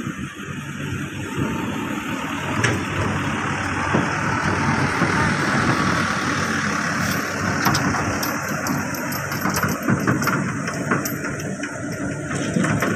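Diesel dump truck driving past close by on a rough dirt track, its engine running steadily. Its body gives short clanks and rattles over the ruts from about halfway in.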